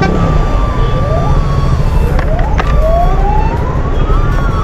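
A siren wailing, its pitch sweeping up and down, with the longest rise peaking about four seconds in, over a steady rumble of passing traffic and engines on a busy road. Two short sharp clicks come a little over two seconds in.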